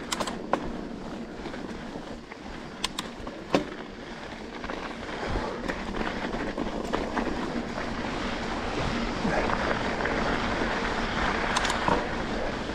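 Mountain bike rolling along a dirt trail: steady tyre and riding noise with several sharp knocks and rattles from the bike. The rolling noise grows louder about halfway through.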